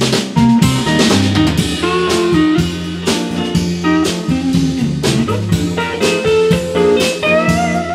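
Blues band playing an instrumental passage: a Fender Stratocaster electric guitar plays lead lines with bent notes over bass and drums.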